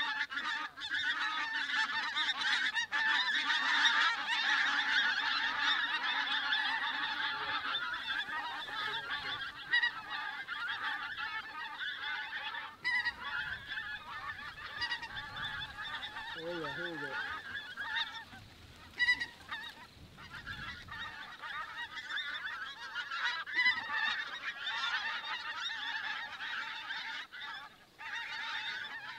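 A large flock of pink-footed geese calling overhead, a dense continuous chorus of high honks. It is loudest in the first few seconds, then thins somewhat.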